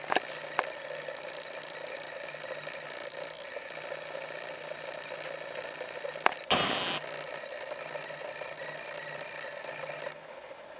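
Lovebird foraging in its food bowl, its beak rustling and crackling through leaf-wrapped seeds and pellets. There are a few sharp clicks, and a louder rustle about six and a half seconds in.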